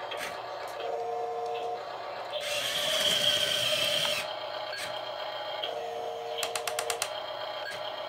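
Double E F-96 1/14-scale RC skid steer loader working in sand: its small geared electric motors whine, loudest from about two and a half to four seconds in. A rapid run of ratchety clicks follows a little later.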